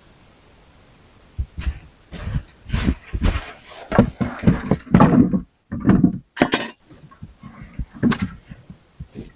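Irregular knocks, thuds and rustling scrapes of materials being handled and moved, starting about a second and a half in.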